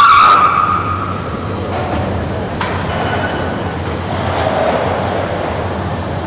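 Steady low rumble and din of background noise in a large hall, with a brief high two-tone sound at the very start and a single sharp click about two and a half seconds in.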